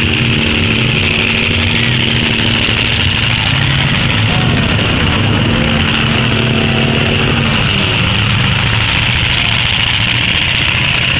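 Several demolition derby car engines running at once, a loud steady din of overlapping engine notes; one steady note drops away about seven and a half seconds in.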